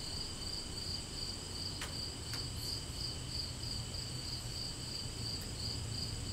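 Crickets chirping in a steady, evenly pulsing high trill over a low hum, with two faint ticks about two seconds in.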